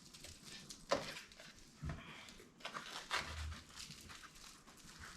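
Small plastic jewelry bags rustling and crinkling as the pieces are handled, with a sharp tap about a second in and a dull thump near two seconds.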